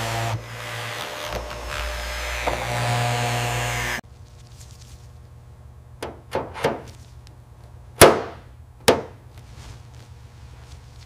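A power tool running steadily with a hum, cutting off abruptly about four seconds in. Five sharp knocks or taps follow, the loudest about eight seconds in.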